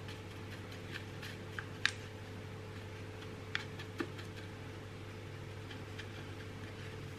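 Quiet kitchen room tone with a steady low hum, broken by a few faint light clicks of a measuring spoon being handled while half a teaspoon of baking powder is measured out.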